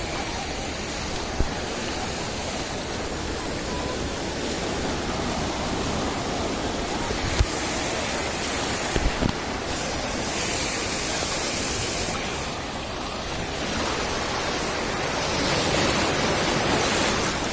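Sea surf on a sandy beach: a continuous wash of waves, the hiss swelling several times as breakers come in and spread up the sand. A few brief low thumps, the loudest about seven seconds in.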